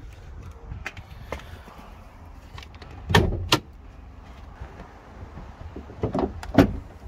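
Clunks and clicks of a Jaguar XF Sportbrake's bonnet being released and lifted: a pair of sharp clunks about three seconds in, fainter clicks before them, and another pair near the end as the bonnet's front edge is raised.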